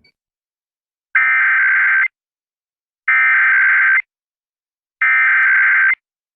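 Emergency Alert System SAME header: three identical bursts of screeching digital data tones, each about a second long and about two seconds apart. These bursts mark the start of an EAS test broadcast.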